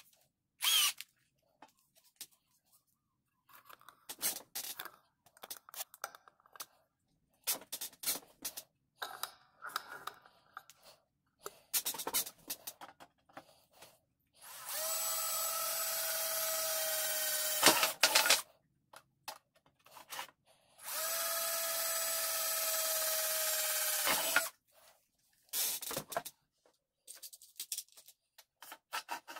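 Power drill running twice, about three and a half seconds each time at a steady pitch, boring holes through 1 mm aluminium sheet. Short clicks and rattles of handling come before and after.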